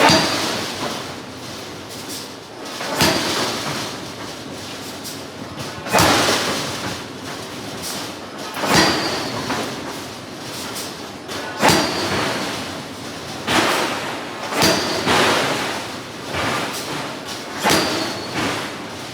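Large hydraulic forging hammer striking hot steel: a series of heavy blows, about nine in all, one to three seconds apart, some with a short metallic ring, over steady shop noise.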